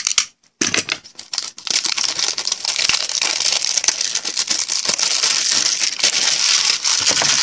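Plastic packaging crinkling and crackling close to the microphone as it is handled, starting with a few sharp clicks and then running on steadily from about half a second in.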